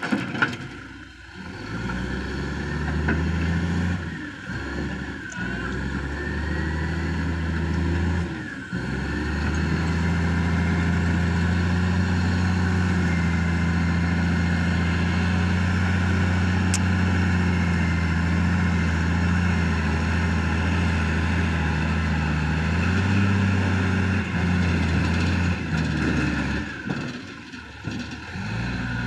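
Heavy diesel engine running, its note dropping and picking up several times, then held steady at higher revs for about fifteen seconds before easing off near the end.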